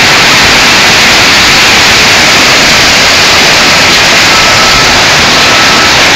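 Torrential rain pouring down onto paving, a very loud, dense, steady hiss of splashing water.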